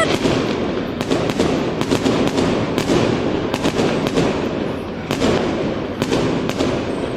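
Fireworks display going off: a continuous dense crackle with many sharp bangs following one another in quick succession.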